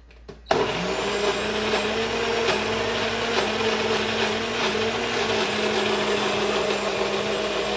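Electric blender switched on about half a second in and running steadily, grinding ginger and garlic into a paste.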